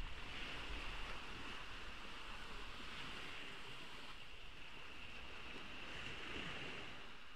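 Ocean waves washing onto a beach: a steady rushing hiss that swells about half a second in and again around six seconds.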